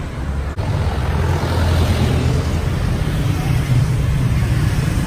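Street traffic on a narrow town road: cars and motorbikes passing, heard as a steady low rumble.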